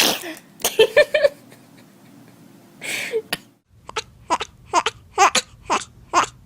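A baby sneezing: one sharp, sudden sneeze, then a softer one about three seconds in. After that come short vocal bursts in quick succession, two or three a second.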